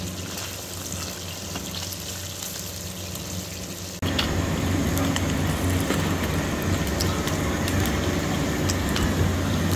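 Pieces of tilapia deep-frying in hot oil, a steady sizzle that gets louder about four seconds in, with a few light clicks of the slotted spoon against the pan.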